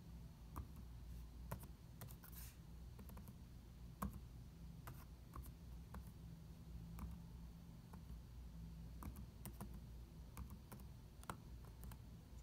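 Laptop keyboard keystrokes: irregular, faint clicks as numbers are typed, over a low steady hum.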